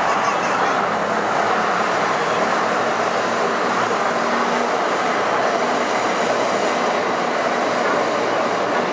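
Taipei Metro C301 metro train running steadily along the line, with a dense, even rumble of wheels on rail and traction equipment and a faint brief hum about two and a half seconds in.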